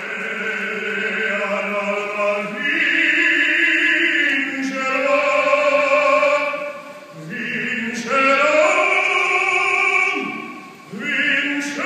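A male opera singer sings long held notes, the pitch stepping from one note to the next, with brief breaks for breath about seven and eleven seconds in.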